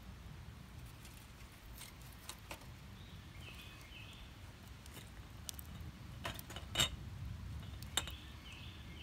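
Split-wood fire in a tin-can hobo stove crackling, with scattered sharp pops, the loudest about seven seconds in, over a low steady rumble.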